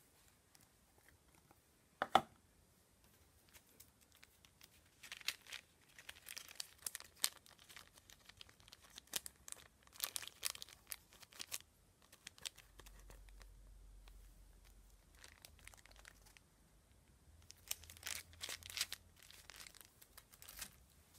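Crinkling and rustling of whitening-strip sachets being handled, in two main bouts with a quieter stretch between, after a single sharp tap about two seconds in.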